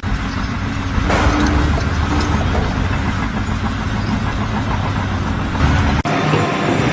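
A heavy vehicle or machine engine running steadily, louder from about a second in, with an abrupt change to a different sound near the end.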